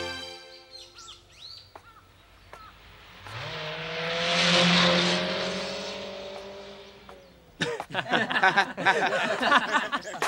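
A car passing by in the street, its engine tone and road noise swelling to a peak and then fading over a few seconds. Faint bird chirps come before it, and a burst of dense, busy chirping follows near the end.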